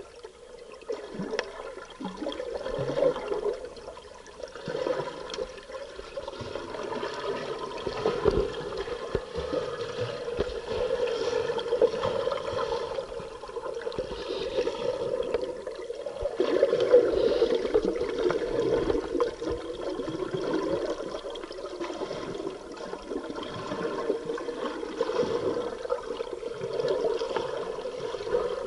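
Muffled underwater bubbling and rushing from a scuba diver's exhaled breath, heard through the camera's underwater housing, swelling and fading every few seconds.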